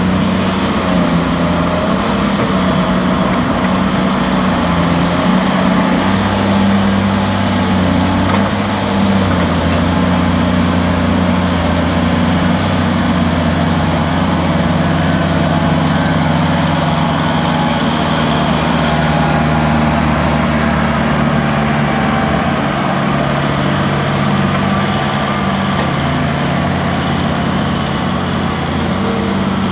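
Heavy diesel engines of a Caterpillar 330C crawler excavator and Bell articulated dump trucks running steadily under working load as the excavator digs and loads a truck. The engine note shifts a little in pitch now and then.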